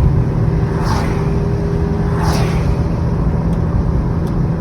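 2016 Subaru WRX's turbocharged flat-four running at a steady cruise, heard from inside the cabin with a constant low drone of engine and road noise. Two brief whooshes fall in pitch about one and two seconds in.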